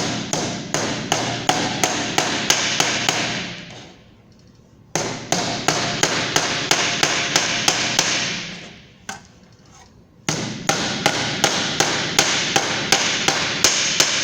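Hand hammer striking sheet metal, flattening the crimped edge of a bottom onto a round rim. Rapid blows about three a second, in three runs broken by two short pauses.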